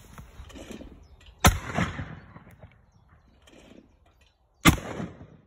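Two shots from an 1870s under-lever side-by-side hammer shotgun firing home-loaded black-powder brass cases, one from each barrel, about three seconds apart. Each is a sharp report with a short echoing tail.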